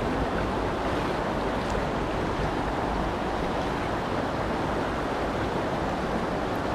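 Steady, even rush of moving water, with no distinct events.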